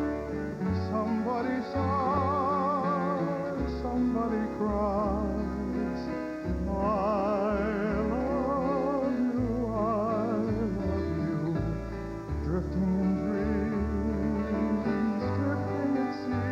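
Live Hawaiian song by a male vocal group: sustained sung notes with vibrato over strummed acoustic guitars and steady bass notes.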